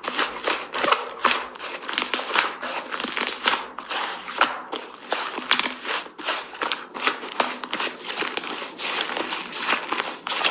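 Slime being squeezed and worked by hand, giving a dense run of irregular crackling clicks and small pops.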